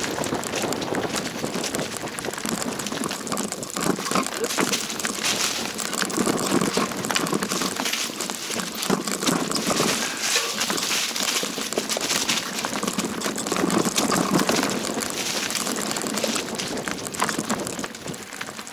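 Continuous crunching and rattling of movement over a rough mountain trail, with many small crackles and clicks throughout.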